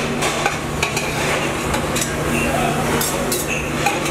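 Busy buffet and kitchen clatter: a steady hum and noisy background, with scattered light clinks of metal serving utensils and dishes.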